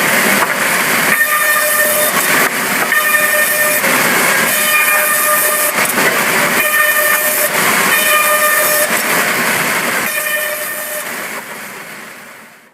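Sawmill saw cutting through timber: a loud hissing rasp with a high whine that sounds in stretches of a second or two, fading out over the last two seconds.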